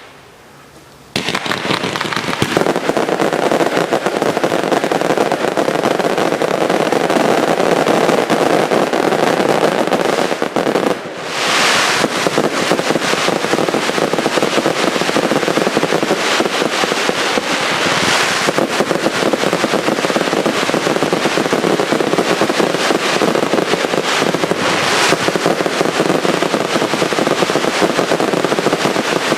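Consumer firework cakes firing in a dense, continuous barrage of launches and bangs, starting about a second in. Brighter hissing surges come roughly every six to seven seconds.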